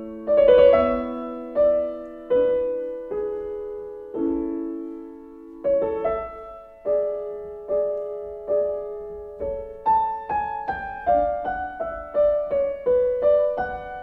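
Background music: a gentle solo piano tune of single notes and chords, each struck and left to fade. The notes come about once a second, then quicker in the last few seconds.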